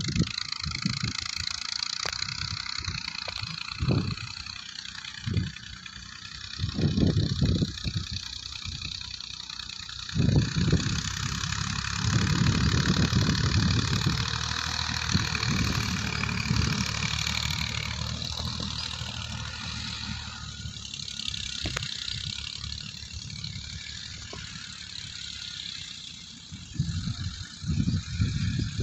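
Massey Ferguson tractors' diesel engines running steadily as they pull cultivators across a field. Irregular low rumbles of wind buffet the microphone, heaviest a few seconds in, through the middle, and near the end.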